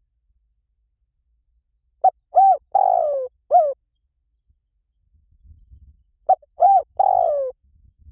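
Spotted dove cooing: two phrases of three or four coos each, about two seconds in and again about six seconds in, the longest note of each phrase falling in pitch at its end.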